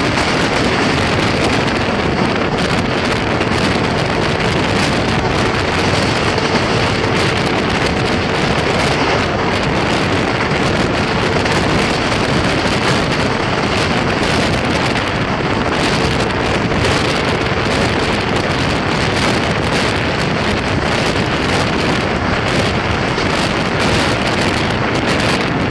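Express passenger train running at high speed, heard from an open carriage window: a steady loud rush of wind on the microphone mixed with the wheels' running noise on the track. A faint steady hum comes and goes twice.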